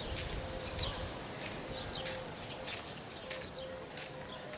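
Outdoor ambience of small birds chirping repeatedly in the trees, short high chirps over a faint steady background.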